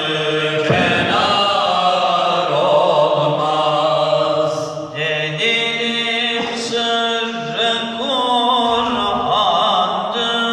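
Male choir singing a Turkish Sufi hymn (ilahi) unaccompanied. A solo voice carries a wavering, ornamented melody over a steady held note beneath it. The held note steps up about halfway through.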